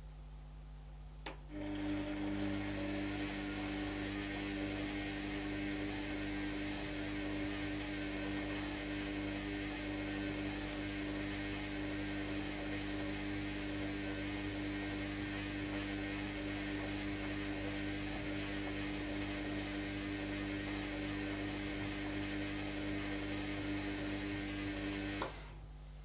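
Bush WMDF612W washing machine's drum motor tumbling a wet wash load at steady wash speed. A click about a second in starts a steady, even-pitched motor hum, which stops with another click near the end.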